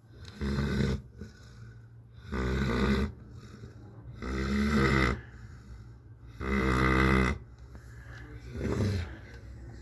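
Great Dane snoring: five snores about two seconds apart, each lasting under a second, the last one shorter and weaker.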